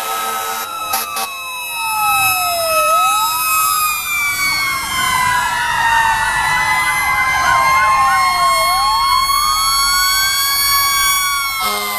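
Several emergency-vehicle sirens wailing at once, each slowly rising and falling in pitch and out of step with the others, from fire engines and an ambulance passing by. A deep horn sounds until about half a second in, and again just before the end.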